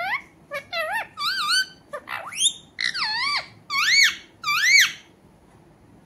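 Rose-ringed parakeet calling: a quick series of about nine short, high calls, each rising and falling in pitch, the loudest near the end, stopping about five seconds in.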